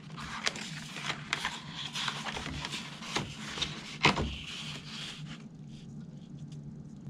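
Sheet of C-temp plastic rubbing and sliding over a paper plan as it is handled, lifted and flexed, with scattered small ticks and crackles and one sharper click about four seconds in. The handling grows quieter in the last second or two.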